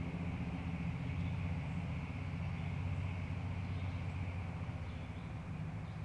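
Creek ambience: a steady low rumble over running creek water, easing off slightly toward the end, with faint bird chirps.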